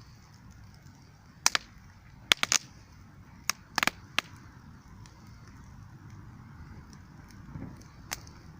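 Wood fire crackling: a handful of sharp snaps and pops from the burning wood, bunched in the first half and one more near the end, over a low steady rush.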